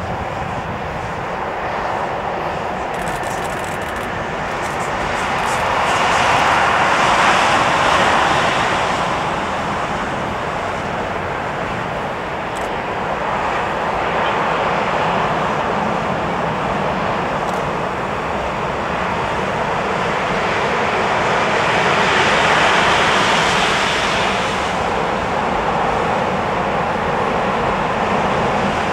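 Container freight train's wagons rolling past: a steady rush of wheels on rails that grows louder twice.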